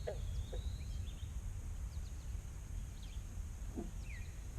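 Scattered faint bird chirps over a steady low outdoor rumble.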